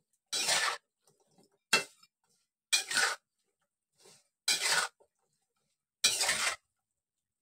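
Metal spatula scraping and tossing cut long beans in a wok: five stirring strokes about a second and a half apart, with a short sharp clink of metal on the pan about two seconds in.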